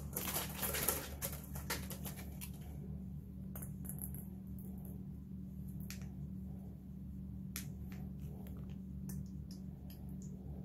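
Small plastic pizza-sauce pouch from a Lunchables kit crinkling as it is opened and squeezed out, with a burst of rustling in the first second and scattered small clicks and taps after. A low steady hum runs underneath.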